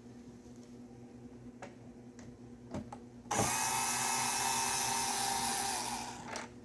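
Power drill with a star (Torx) bit running steadily for about three seconds, driving a speaker-box screw, then winding down. A few light clicks come before it.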